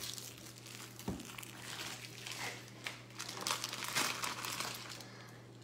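Clear plastic wrapping being handled, crinkling faintly in short irregular bursts, over a steady low hum.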